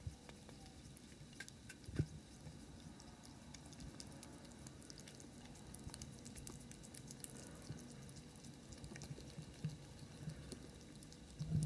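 Two ferrets licking and nibbling at a treat in a hand-held packet: faint, quick, wet licking and smacking clicks, with a single thump about two seconds in.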